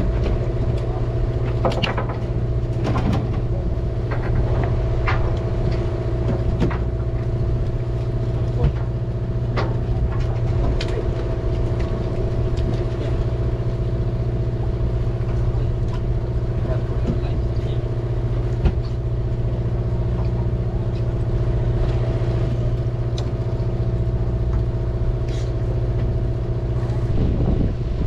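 A fishing party boat's engine running with a steady, even drone. Occasional light clicks and knocks, typical of rods and tackle against the rail, sound over it.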